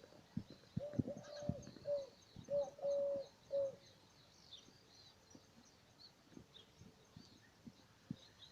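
Birds singing. About a second in, one bird gives a run of six short, even, low notes over some three seconds, while smaller birds chirp high and faintly throughout. A few soft low thumps sound here and there.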